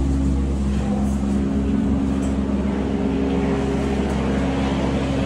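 Steady low drone of a helicopter's turbine engine and rotor running, a few even pitched tones over a constant hum.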